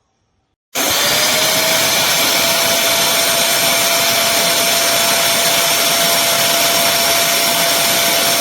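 Bissell CrossWave HydroSteam Pet wet-dry floor cleaner's vacuum motor switching on about a second in and running steadily. Its whine rises briefly as it spins up, then holds over a loud rush of air.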